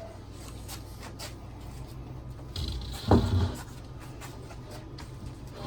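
Handling noises of assembly parts being carried and set in place, with one loud knock about three seconds in, a part set down or bumped, that rings briefly.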